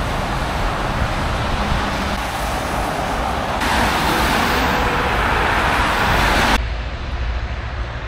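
Road traffic noise: a steady rush of passing cars' tyres and engines, louder for about three seconds in the middle, then dropping off abruptly about six and a half seconds in.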